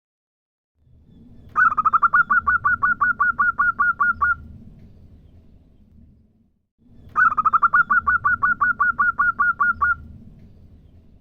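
Female zebra dove (perkutut) calling: two runs of rapid, evenly spaced staccato coos, each about three seconds long at about five notes a second, a few seconds apart. A low rumble sits underneath each run.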